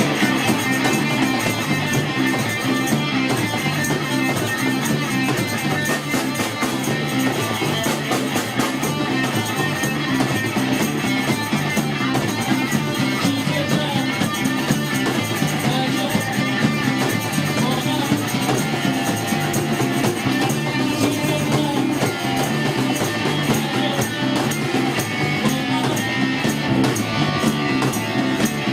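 Live rock band playing: guitar over bass and drum kit, loud and continuous.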